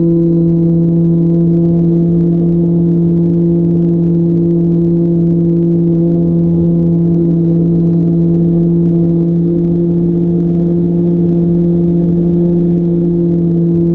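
Radio-controlled plane's motor and propeller heard from on board, a loud, unchanging drone held at constant throttle.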